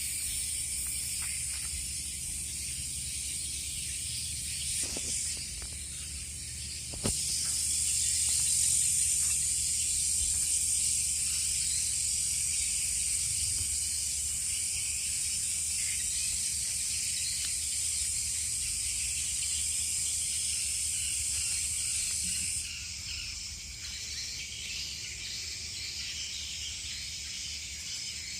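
Steady high-pitched chorus of insects. A louder, shrill band starts abruptly about a quarter of the way in and cuts off suddenly about three quarters through.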